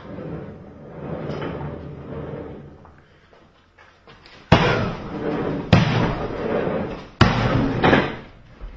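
A heavy punching bag hanging on a chain being hit hard: three sharp smacks, the first about halfway through and the next two about a second and a half apart, then a lighter fourth hit. Each smack trails off briefly as the bag swings.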